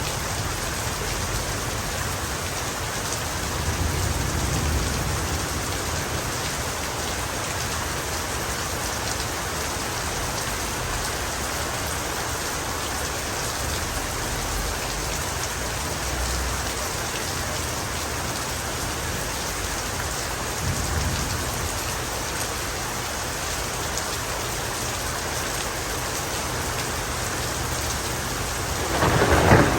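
Heavy rain falling steadily, with a few faint low rumbles of distant thunder. A loud thunderclap starts near the end.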